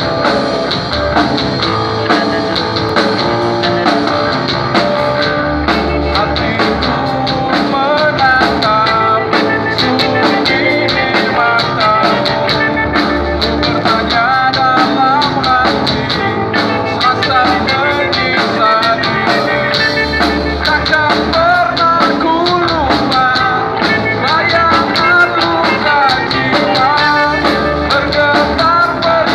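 Grunge rock band playing live: drum kit, guitars and bass, with a wavering melody line coming in about eight seconds in.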